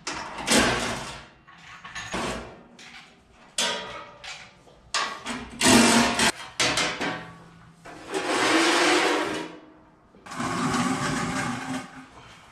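Mechanic's tool work under a car: irregular metallic clanks and knocks, then two bursts of a whirring power tool near the end, each about a second and a half long.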